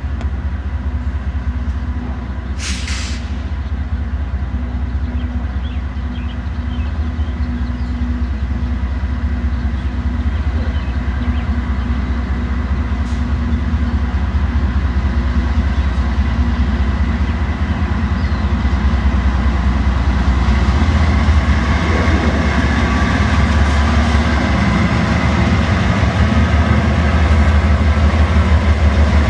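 Diesel locomotives of a slow-rolling BNSF grain train, led by GE Dash 9-44CW 4859, running with a steady low hum that grows louder as the lead unit approaches and draws alongside near the end. A short, sharp high-pitched noise about three seconds in.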